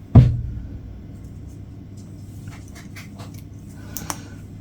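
A single dull, heavy thump just after the start, then faint small clicks and rustles of things being handled.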